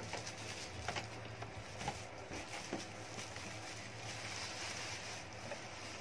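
Thin clear plastic bag rustling and crinkling as it is pulled off an appliance, with a few sharper crinkles in the first three seconds.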